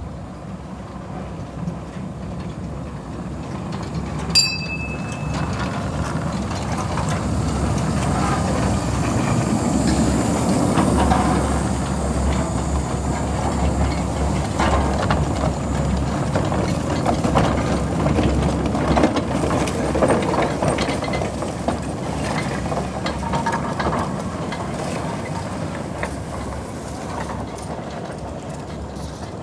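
A 12.5-inch gauge ride-on freight train rolling past over a garden track, its wagon wheels clicking over the rail joints; the rumble builds as it approaches, is loudest as the wagons cross, then fades away. A short, sharp ringing tone sounds about four seconds in.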